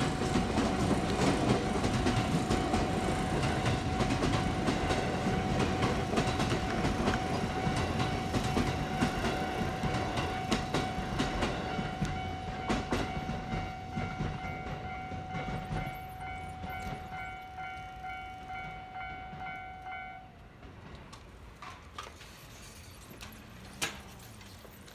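A JR Yamatoji Line train passing over a level crossing, its wheels clattering over the rail joints and fading steadily as it moves away, while the crossing's warning bell rings with a steady pulsing tone. The bell cuts off about twenty seconds in, leaving faint background and one short knock near the end.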